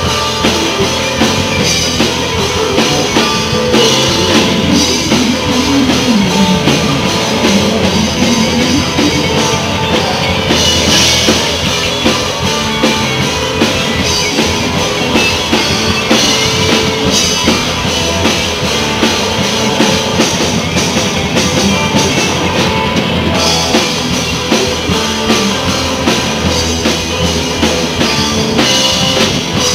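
Live blues-rock band playing: electric guitar over a drum kit, with guitar notes bending up and down in pitch early on.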